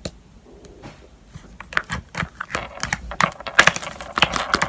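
Hands working a homemade body-wash and salt slime, giving irregular sticky crackling and squelching that gets busier and louder in the second half, after a single click near the start.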